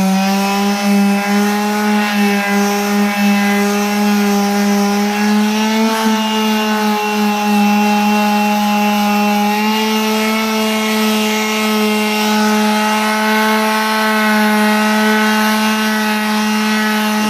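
Power sander running steadily on guide-coated body filler on a car panel, a loud even hum whose pitch creeps up slightly along the way. It is sanding down the black guide coat to level the filler's high spots.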